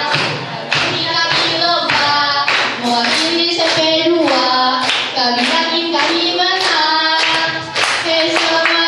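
Young voices singing a song together while clapping their hands to a steady beat, about two claps a second.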